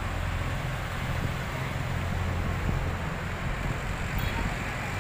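Street traffic passing close by: the low, steady rumble of a nearby vehicle engine running at low revs, with passing jeepneys and vans.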